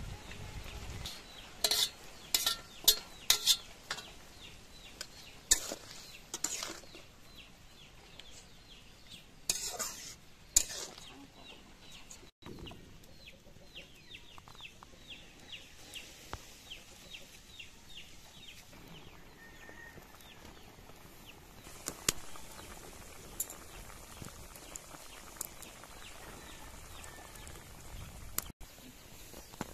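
A metal spatula clinks and scrapes against a steel plate and an iron wok as meat is tipped in and stirred, in several quick runs of sharp clinks during the first half.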